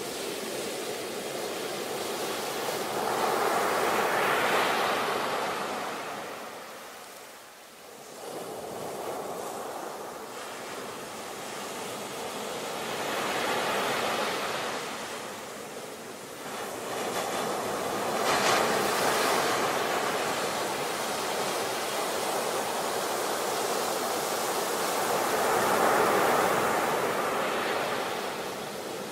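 Ocean surf: waves breaking and washing in one after another, the rush of water swelling and fading every several seconds, with a brief lull about seven seconds in.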